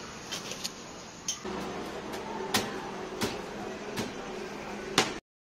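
Freshly cooked parottas being slapped and crushed by hand on a steel counter: four sharp smacks about two-thirds of a second to a second apart over a steady background hum, then the sound cuts off abruptly.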